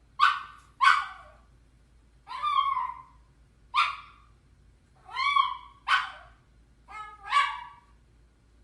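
A dog crying: about eight high-pitched yelps and whines in irregular succession, some short and sharp, a few drawn out, many dropping in pitch at the end.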